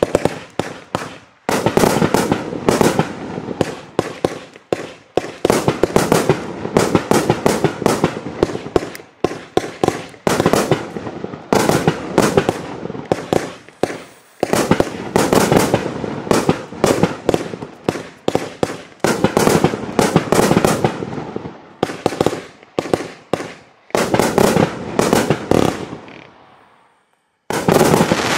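A Riakeo JLP2304 1.2-inch 49-shot consumer fireworks cake firing: rapid bangs of tubes launching and shells bursting, several a second, broken by a few short pauses and ending in a final volley.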